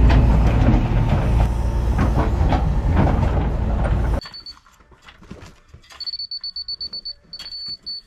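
A septic pump truck's engine and vacuum pump running steadily while sucking out a septic tank, a loud low mechanical drone. About four seconds in it cuts off, giving way to quiet knocks and a high electronic beep that pulses rapidly.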